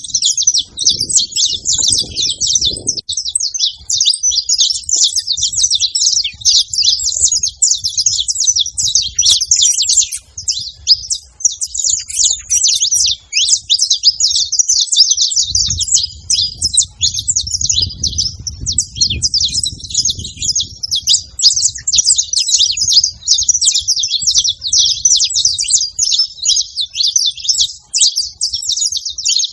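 Several saffron finches chirping and singing together in a dense, continuous chatter of high, rapid notes. A low rumble sits underneath at times, strongest from about halfway through.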